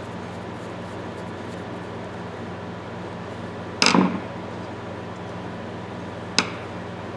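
A short clatter of metal tools or small parts being handled on a workbench about four seconds in, then a single sharp click, over a steady low hum.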